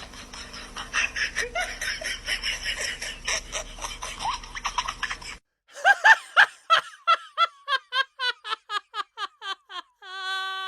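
Laughter sound effects: a group of people laughing, then after a brief break a single voice laughing in quick, evenly spaced 'ha's, about four a second. A steady held tone starts near the end.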